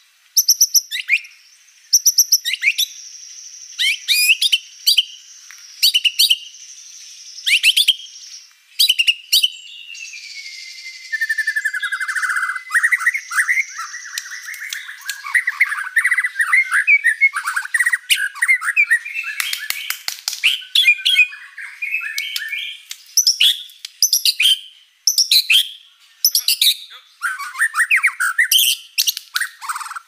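White-rumped shama (murai batu) in full song: a long, varied run of loud whistles, sharp repeated notes and fast trills. Near the start a high whistle is held for a few seconds; about ten seconds in a falling whistle leads into rapid chattering phrases that run on to the end.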